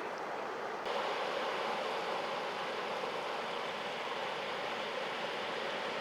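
Sea surf washing over rocks: a steady rushing wash that suddenly grows louder and brighter just under a second in, then holds level.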